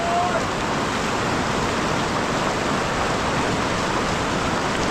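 Steady rush of flowing water, like a stream running close by.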